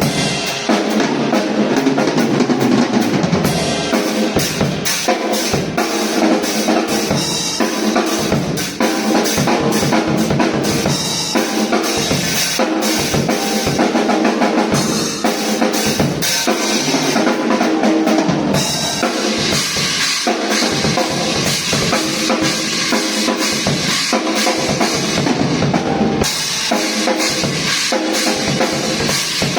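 Handmade Gabriel Drums acoustic drum kit being played continuously, a busy stream of drum strokes.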